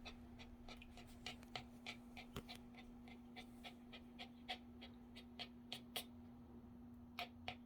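Small dog panting faintly in quick, uneven short breaths, over a steady low hum.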